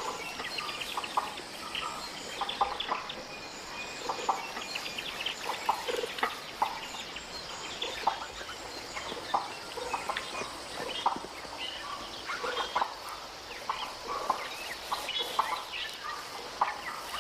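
Sifakas giving their alarm call for a predator on the ground: a run of short, sharp calls from several animals, repeated irregularly several times a second. It warns the group of danger from the forest floor.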